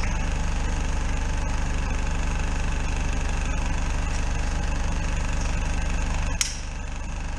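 Drain-jetting unit's engine and pump running steadily with a fast, even throb. About six seconds in comes a brief sharp hiss, after which the running is quieter.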